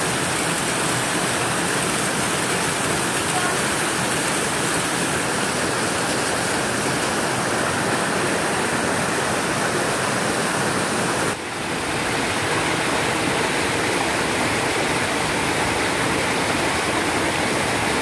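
Small waterfall cascading over boulders: a steady, even rush of water, with a brief dip in level about eleven seconds in.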